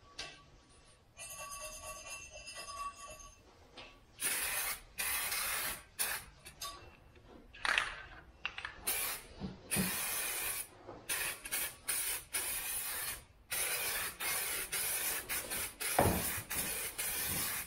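Aerosol spray can of rust inhibitor sprayed into a car's wheel well, hissing in repeated bursts, some brief and some lasting a second or two.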